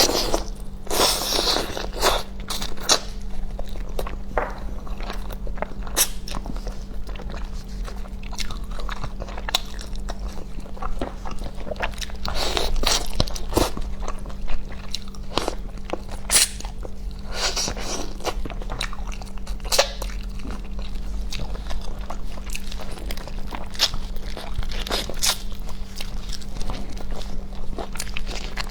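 A person eating close to the microphone: chewing and biting with crunches and many short, sharp mouth clicks, and a few longer wet noisy stretches.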